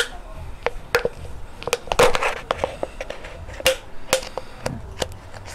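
Thin plastic water bottle clicking and crackling as the point of a pair of scissors is twisted through it to bore a hole: a string of irregular sharp snaps, with a short crinkling stretch about two seconds in.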